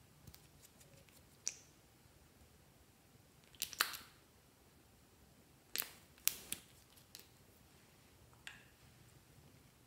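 Sharp clicks and taps of small plastic containers and add-ins being handled and set into glass trays, about seven of them spread out, the loudest a quick double click about four seconds in.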